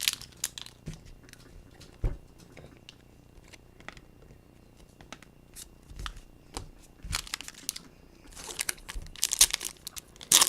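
Trading-card pack wrappers being torn open and crinkled, with cards being handled: scattered small crackles and clicks, turning into a busier run of crinkling near the end.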